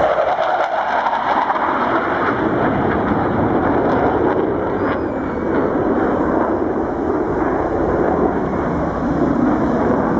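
Loud, steady jet noise from an F/A-18 Hornet fighter's twin engines as it flies past and pulls up into a steep climb.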